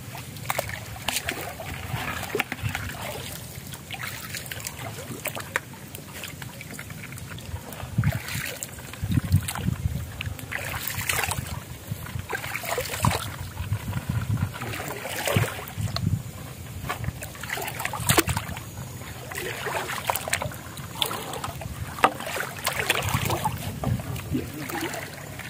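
Footsteps wading through shallow water over soft mud, an uneven series of splashing steps with low thuds, some coming close together.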